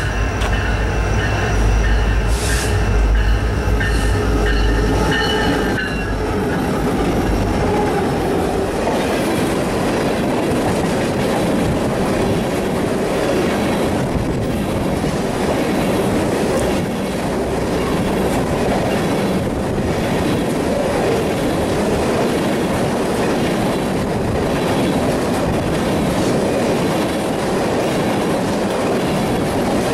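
A freight train of tank cars passes close by at speed. For the first several seconds there is the diesel locomotives' low engine drone with a steady chord of high tones over it. After that the tank cars roll by with a continuous rumble and clatter of wheels on the rails.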